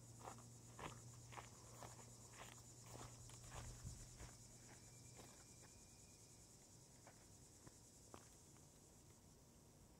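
Faint, steady insect chorus, with scattered soft clicks and rustles; a low hum underneath fades out about halfway.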